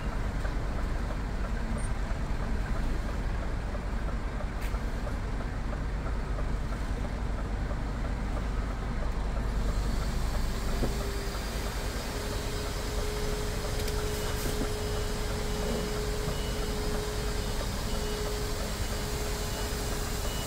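Scania R450 truck's diesel engine running at low revs as the truck manoeuvres slowly, heard from inside the cab. About halfway through, a steady high tone joins in and holds.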